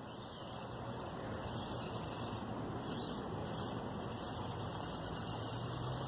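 Axial SCX24 Deadbolt 1/24-scale micro crawler running on its small 88T electric motor and worm-gear axles, a faint steady motor-and-gear hum that grows slightly louder near the end as the truck comes closer.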